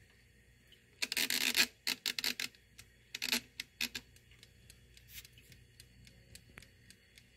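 Mechanical timer dial on an electric egg steamer being wound, with a rasping run of ratchet clicks for about three seconds, then the timer ticking faintly as it starts counting down.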